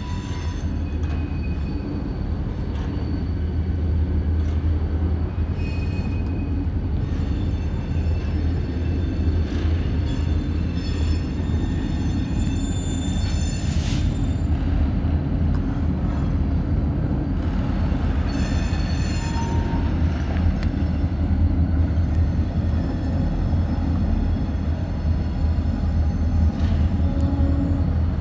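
Freight train running past with a steady low rumble, and high-pitched squeals coming and going, strongest around the middle, as its wheels grind through a curve.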